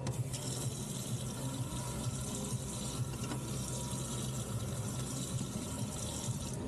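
Water running steadily from a commercial faucet's tap into the sink, turned on with the newly replaced cold stem to check it for leaks.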